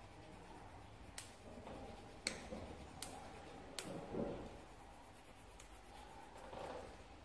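Four sharp clicks about a second apart over faint hiss, with a soft rustle just after the last one.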